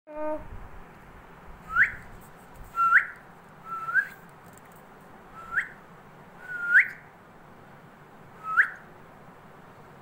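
Alexandrine parakeet whistling: six short whistles spaced a second or two apart, each a brief level note that sweeps sharply upward at the end.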